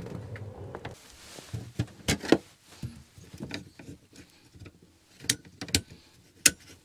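Truck camper's electric slide-out motor running with a steady hum, stopping about a second in. Then a string of sharp clicks and knocks, the loudest a little over two seconds in, as a panel under a bench is handled.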